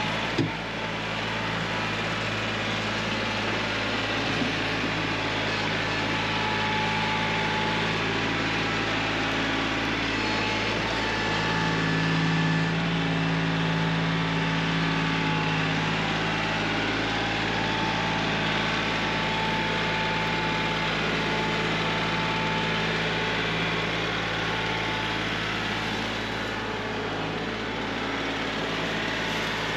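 Kioti CK3510SE compact tractor's three-cylinder diesel engine running steadily, picking up a little around the middle. There is a single sharp knock right at the start.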